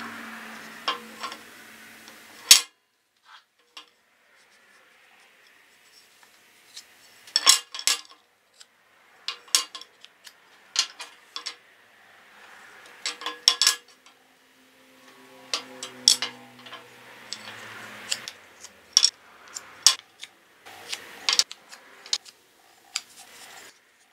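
Thin wooden strips and small hand tools being picked up, laid down and knocked against a metal table saw top: an irregular run of sharp clicks and clatters, the loudest knock about two and a half seconds in.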